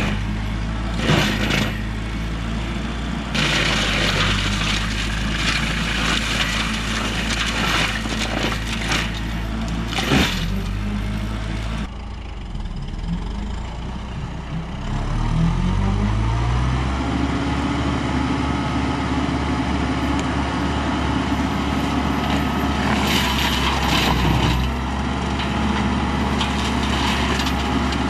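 Kubota tractor's diesel engine driving a PTO forestry mulcher, with noisy bursts of grinding as the mulcher chews into a brush pile. About halfway through, the engine speed rises and then holds steady at the higher speed, with more grinding near the end.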